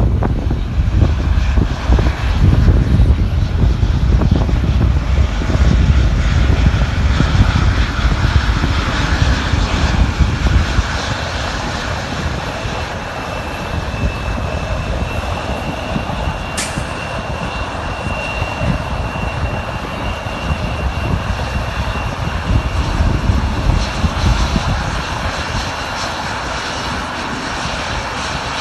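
Boeing C-17 Globemaster III's four turbofan engines running at high power on a takeoff. A heavy low rumble dominates for about the first ten seconds, then eases into a steadier, somewhat quieter roar with a faint high whine over it.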